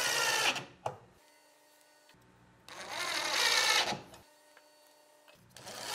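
Cordless drill driving screws to fasten hairpin legs to a wooden tabletop: short runs of motor whine about a second long, separated by quiet pauses, with a sharp click after the first run and the third run starting near the end.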